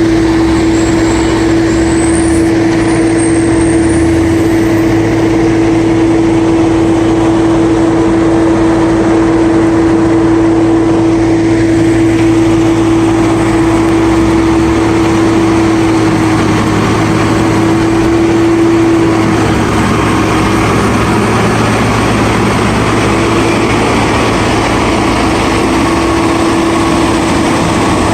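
Heavy diesel snow-removal machine running steadily under work, with a constant whine held over the low engine hum. A few faint high whistling glides come in the first few seconds.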